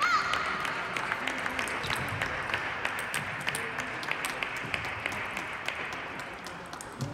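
Sustained applause, with scattered sharp clicks of table tennis balls from neighbouring tables. A brief high squeal right at the start is the loudest moment.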